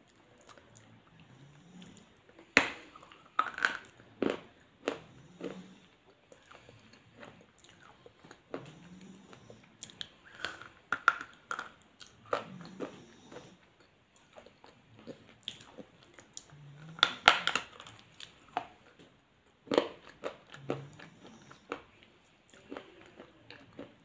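Close-up biting and chewing of a crunchy food. Loud crisp crunches come in clusters, a few seconds in, around the middle and again later, with quieter chewing between.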